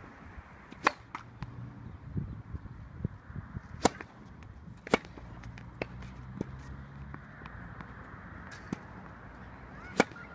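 Tennis racket strings striking the ball: sharp pops of a serve about a second in, rally shots near four and five seconds, and another serve near the end, with fainter ticks of ball bounces and lighter hits between.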